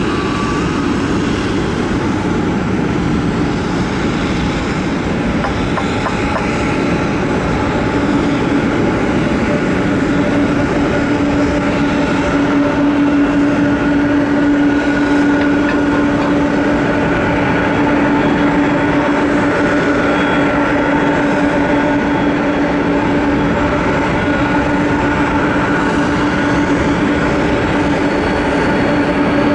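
Four engines of a Boeing 747-400 freighter running at taxi power: a steady jet hum and whine with a low drone that grows stronger about eight seconds in.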